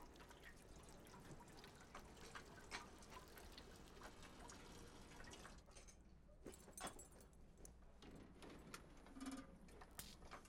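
Near silence: faint room tone with scattered small clicks and ticks, a few a second, a little more frequent in the second half.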